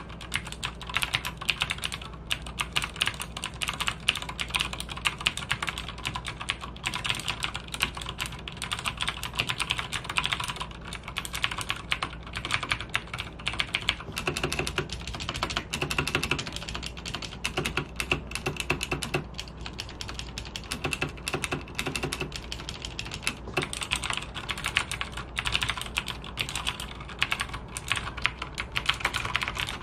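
Logitech G610 mechanical keyboard with Cherry MX Blue clicky switches being typed on freely: a continuous run of sharp key clicks, several keystrokes a second.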